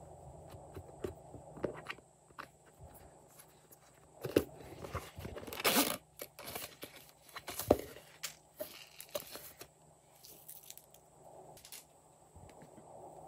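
Handling sounds from a soft silicone zip case: taps and clicks of fingers on the case, and a short zipper rasp just before the middle as the zipper is pulled open.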